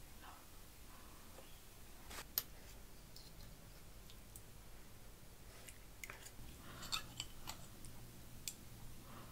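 Quiet kitchen handling sounds: scattered light clicks and clatter of utensils, with a single sharp tap about two seconds in and a small cluster of clicks around seven seconds.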